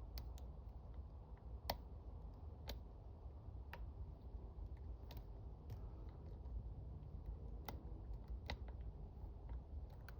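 Lock picking: small, irregular clicks of a pick and tension wrench working inside a challenge lock's keyway, roughly one click a second, over a low steady hum.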